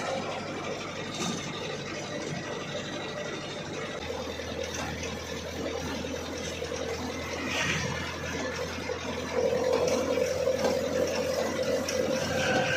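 Isuzu Bison light truck's diesel engine running under way, heard inside the cab, with a steady whine and cab rattles. It grows louder about three quarters of the way through.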